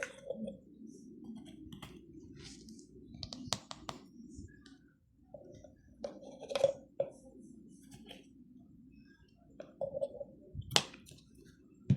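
Scattered clicks and taps of small objects being handled, a few sharper knocks among them, over a low steady hum.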